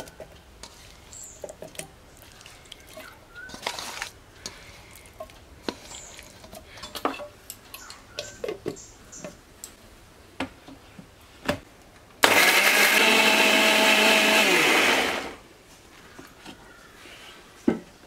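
Electric mixer grinder running for about three seconds, grinding fried spices into a paste in its steel jar. Its steady motor whine drops in pitch as it winds down. Before it come light clicks and knocks of the jar being handled and fitted, and a sharp knock comes near the end.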